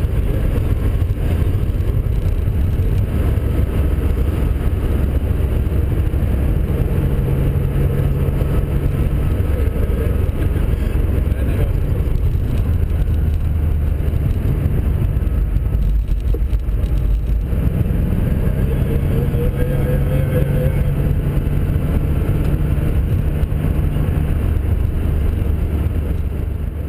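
Racing car engine running hard and continuously, its pitch stepping up and down with gear changes and a brief lift about two-thirds of the way through.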